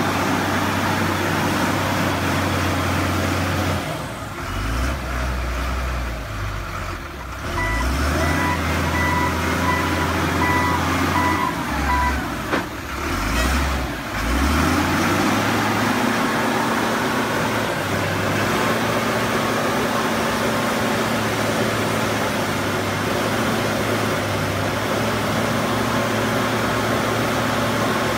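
Michigan wheel loader's diesel engine running as the machine works in mud, its pitch shifting up and down for several seconds before settling to a steady drone. Partway through, a reversing alarm beeps about twice a second for a few seconds.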